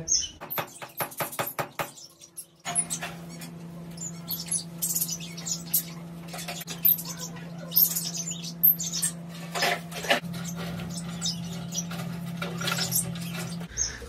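Small cage birds chirping in short, high, scattered calls over a steady low hum. A quick, even run of clicks fills the first two seconds.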